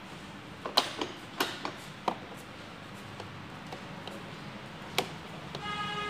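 Scattered light clicks and taps from handling the electric scooter's handlebar controls, over a steady low hum. Near the end a steady electronic tone with a stack of overtones starts up.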